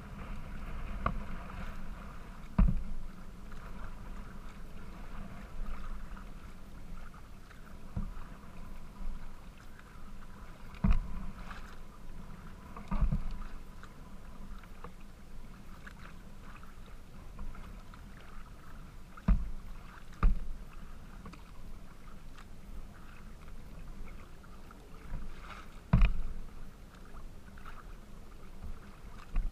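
Choppy water lapping and splashing against the plastic hull of a Pungo 140 kayak, picked up through the bow deck, with about seven sharp thumps at irregular intervals as waves slap the bow.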